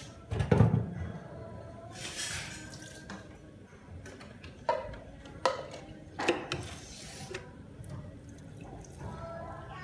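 Liquid sounds from a steel pot of shrimp broth: dripping and splashing, with several sharp knocks, the loudest about half a second in. Near the end a ladle stirs the broth.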